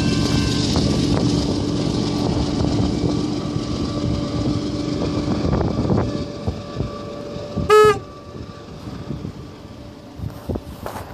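Canadian Pacific freight train running past at speed and receding, its rumble and wheel noise fading away over the first six seconds. A short, loud horn toot about eight seconds in, then wind buffeting the microphone.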